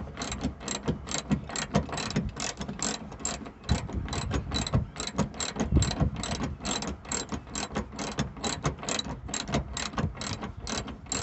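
Socket ratchet wrench clicking steadily, about five clicks a second, as a seat belt anchor bolt is tightened down.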